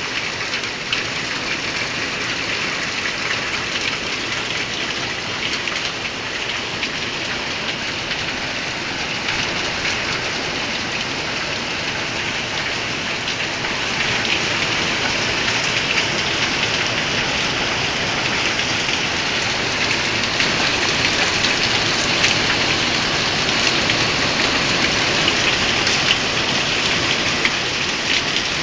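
Heavy rain pouring down steadily and splashing on surfaces, growing a little louder about halfway through.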